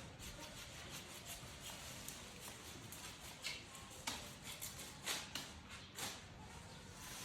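Faint, scattered knocks and rustles, about four in a few seconds, over a quiet background.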